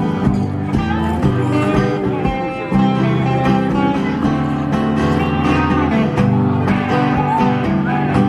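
Country music: an instrumental guitar passage with bass and a steady beat, no singing.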